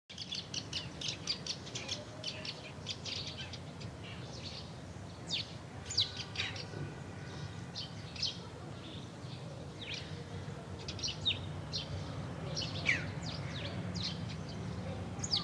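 Several birds chirping and singing: many short, high chirps and quick falling whistles, over a low steady hum.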